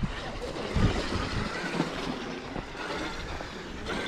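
Traxxas X-Maxx electric RC monster truck driving through deep snow: a steady rushing of drivetrain and tyres churning snow, with a few low thumps.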